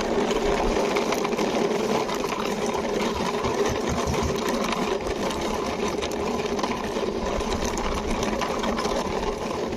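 Plastic toy car pushed along by hand, its wheels giving a steady rattling whir with no break.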